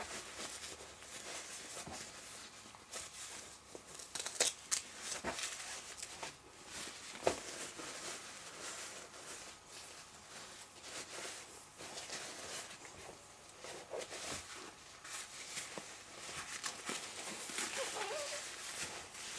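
A disposable diaper and baby clothes rustling and crinkling as a diaper is changed, with scattered sharp crackles. The loudest come a little over four seconds in and again about seven seconds in.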